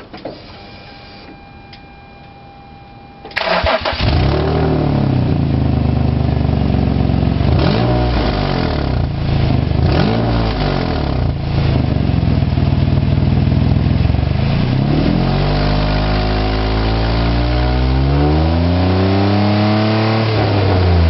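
Nissan Z33's V6 engine starting about three seconds in after a faint steady tone, then idling and being revved repeatedly, rising and falling in pitch. It makes an abnormal noise that the owner puts down to a probably damaged exhaust system.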